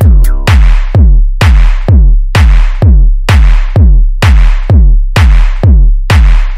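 Funky techno track: a steady four-on-the-floor drum-machine kick at about two beats a second, each hit carrying a falling-pitch bass and a hiss on top. A synth chord fades out in the first half second.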